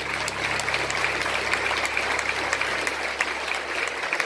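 Audience applauding, a dense patter of many hands clapping. A held low note of the slideshow's background music sounds underneath and cuts off near the end.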